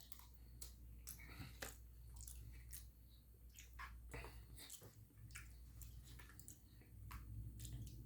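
Faint, close-up chewing of a mouthful of tender catfish fillet, with many small wet clicks and smacks of the mouth scattered throughout.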